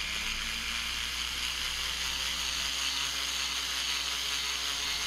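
Rotary tool running steadily, its soft buffing wheel polishing the clear-coated plastic of a model truck cab with polishing compound.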